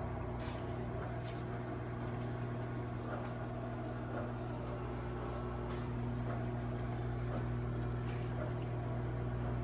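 Microwave oven running: a steady electrical hum with a low droning tone and a few faint ticks.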